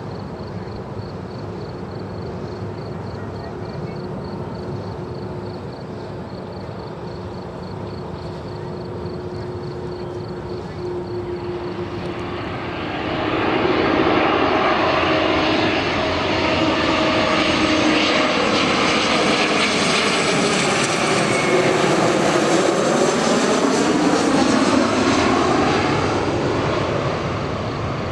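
Twin-engine jet airliner on final approach flying low overhead. A fainter, steady jet rumble fills the first half. About 13 seconds in, engine noise swells loud with sweeping, shifting tones as the jet passes over, then fades near the end.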